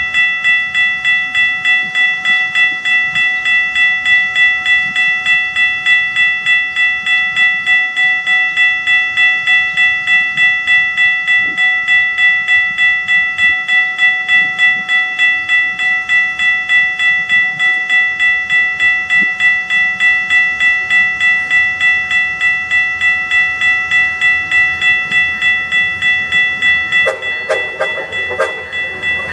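Railroad grade-crossing bell ringing steadily, about three strikes a second. Near the end the approaching train's rumble joins in under the bell.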